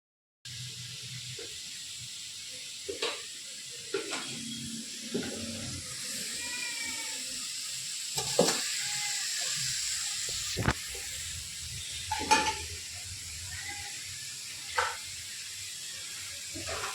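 Food frying in a pan with a steady sizzle, stirred with a spoon that knocks and scrapes against the pan several times.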